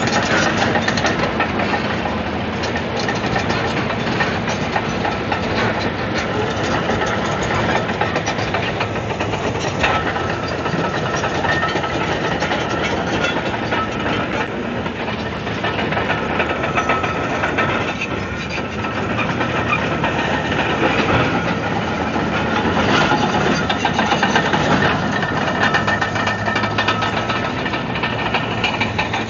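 Komatsu D155AX-7 bulldozer's diesel engine running steadily while working, with a continuous dense clatter over it, typical of its steel crawler tracks.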